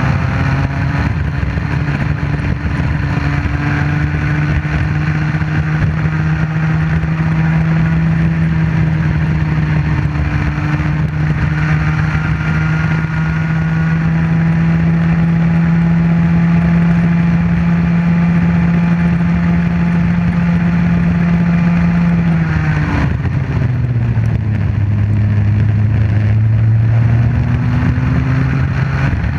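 Comer C50 50cc two-stroke kart engine heard onboard, running at high revs with its pitch slowly climbing and then holding along a straight. About 23 seconds in the revs drop sharply, then climb back up over the next few seconds.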